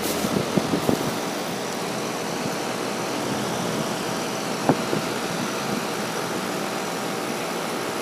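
A Carrier Performance Series 2-ton central air conditioner's outdoor condensing unit running steadily, its condenser fan blowing air up through the top grille: an even rushing noise with a faint steady hum. A short sharp tap a little before five seconds in.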